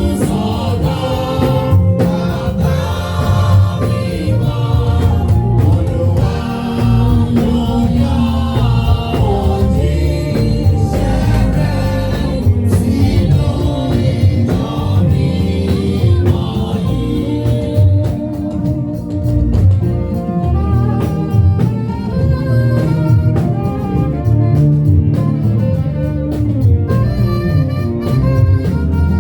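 Choir and congregation singing a gospel hymn with band accompaniment. Past the middle the voices thin out and the instruments carry on.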